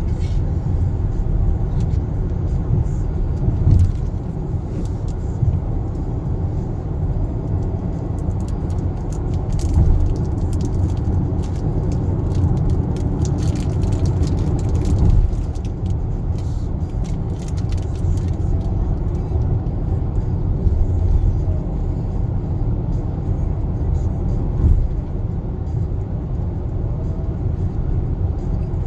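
Steady low road and tyre rumble inside the cabin of a Kia Sportage (NQ5) cruising at highway speed on an expressway.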